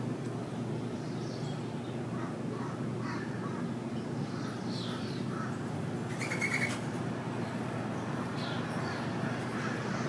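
Wild birds calling around a backyard feeder: scattered short, high chirps, with one louder, harsh call about six seconds in. A steady low hum runs underneath.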